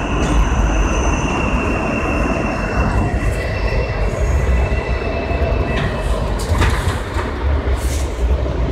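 R160A subway car rumbling along the track as it pulls into a station, with a thin high steady tone over the rumble that fades out about six seconds in.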